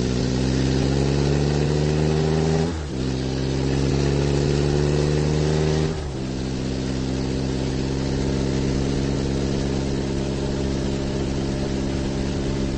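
Car engine accelerating, its pitch rising and breaking off at gear changes about three and six seconds in, then running at a steady pitch.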